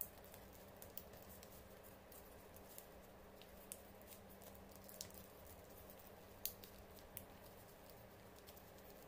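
Paper rustling and creasing under fingers as a small origami model is folded: faint scattered crinkles and ticks, the sharpest about six and a half seconds in, over a low steady hum.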